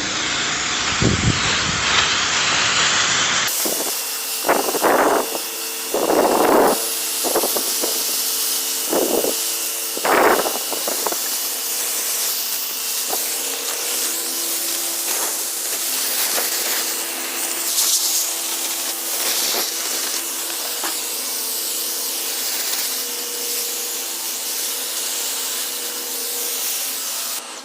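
Water sprayer spraying plants, a continuous hiss of spray with several louder spurts in the first half.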